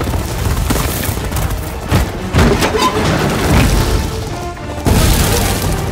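Film soundtrack of an action scene: orchestral score mixed with heavy booms and crashing impacts. There are sharp hits about two seconds in, again just after, and near the end.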